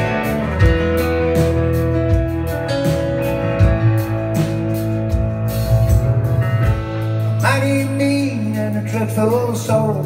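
Live rock band playing a passage without sung words: drums keeping a steady beat under held bass notes and guitar. About seven and a half seconds in, a bending, wavering lead line comes in over the band.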